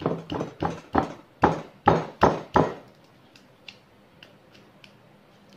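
Pestle pounding ginger and garlic in a mortar: about eight heavy strikes, roughly three a second, then a few light taps.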